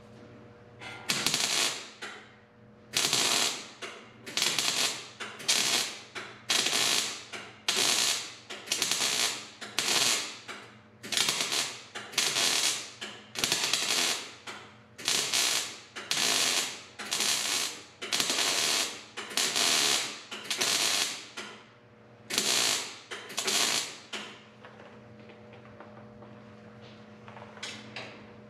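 MIG welder laying a rapid string of short spot welds, roughly one a second, filling a hole in a Farmall M's sheet-steel grill over a copper backing plate. The welding stops about four seconds before the end.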